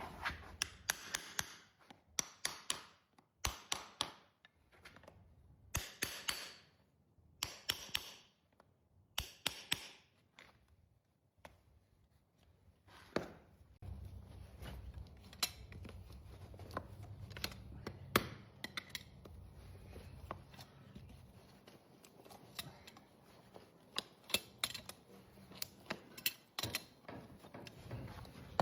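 Hoof horn being cut during a horse hoof trim: a series of sharp snips and cracks, with several scraping strokes in the first ten seconds.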